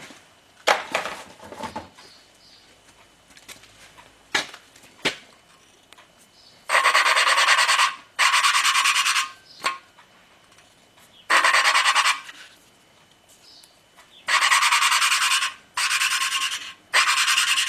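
Exhaust valve of a Willys L-head cylinder head being hand-lapped into its freshly cut seat with valve grinding compound. The suction-cup lapping stick is spun back and forth in about six gritty rasping bursts of roughly a second each, starting about a third of the way in. A few light clicks and taps come first.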